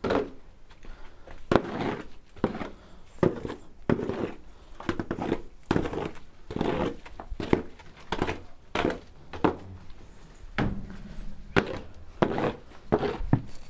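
Footsteps walking at a steady pace, about two dull thuds a second.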